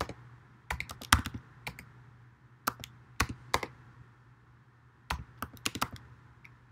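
Keystrokes on a computer keyboard, typed in a few short bursts of clicks with pauses between them.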